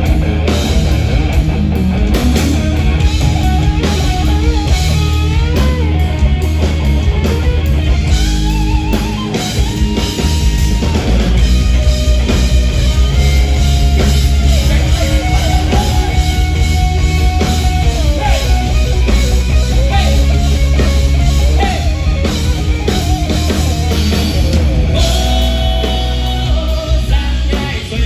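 Rock band playing live: drum kit, heavy bass and electric guitars, with a sustained, wavering lead melody line over them.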